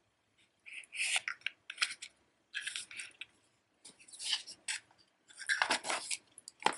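A small cardboard jewelry box and a necklace chain being handled: a run of short scraping and rustling sounds, about five of them, the last and longest near the end.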